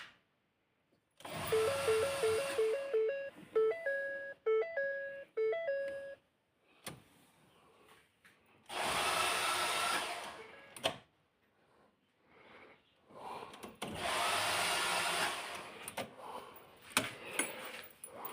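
A 2014 Ford EcoSport failing to start on the key: three tries, each giving a loud whirring buzz lasting one to several seconds instead of the engine catching. The first try carries a fast warbling electronic beep that steps up in pitch.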